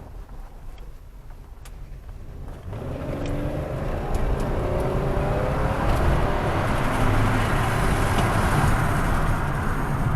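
2007 Pontiac Grand Prix accelerating away from low speed, its engine note rising from about three seconds in and then holding steady under road and tyre noise. The 4T65E automatic transmission, its forward band freshly replaced, is pulling well.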